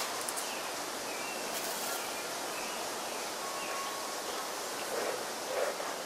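Steady outdoor background hiss with a few faint bird chirps. Near the end, soft puffs begin about twice a second: a bee smoker's bellows being pumped to keep the fuel burning.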